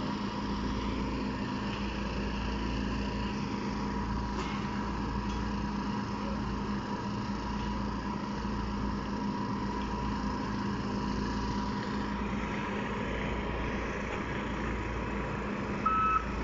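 Volvo EC210D excavator's D5E diesel engine running steadily during a test run. Near the end its travel alarm starts beeping at an even rate.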